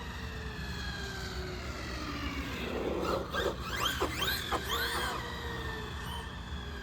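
Electric motor whine of a WOV Racing Blitzkrieg 4S RC monster truck, slowly falling in pitch, then about three seconds in several quick rises and falls in pitch as the throttle is worked.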